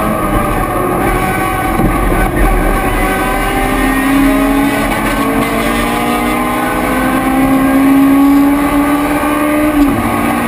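Race car engine at full throttle, heard from inside the cockpit over heavy wind and road noise. Its pitch climbs slowly through a long pull, then drops sharply near the end.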